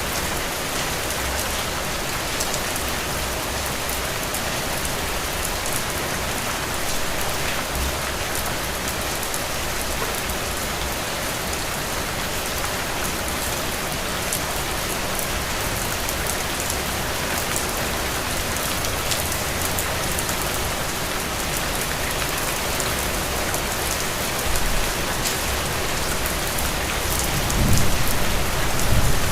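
Steady rain falling on a surface, a dense even hiss with fine drop patter throughout. A low rumble builds in near the end.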